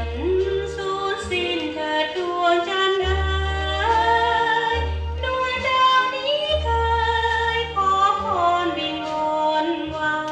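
Thai luk krung song played back over a hi-fi system: a woman sings a slow, gliding melody over orchestral accompaniment with a steady, pulsing bass line.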